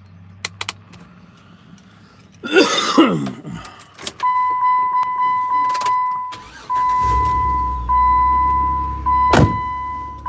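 Inside a Jeep Wrangler's cabin, a steady electronic warning-chime tone sounds from about four seconds in. About seven seconds in, the engine starts and keeps running, with a sharp click near the end. A short scrape or handling noise comes just before the tone.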